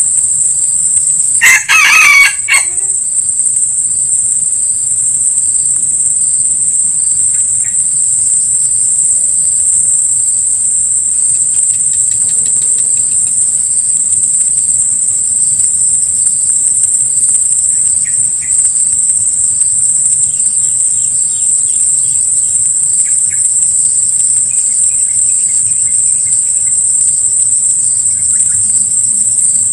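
A junglefowl crows once, about two seconds in, the loudest sound here. A steady high-pitched insect drone runs beneath, with a few faint bird chirps later on.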